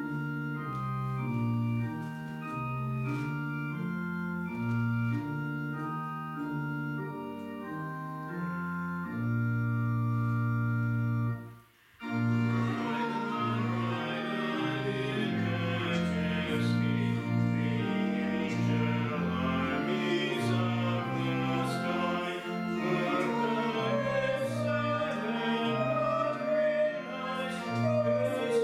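Church organ playing a hymn: an introduction of sustained chords ending on a long held chord. After a short pause about twelve seconds in, the organ begins the verse with a fuller sound.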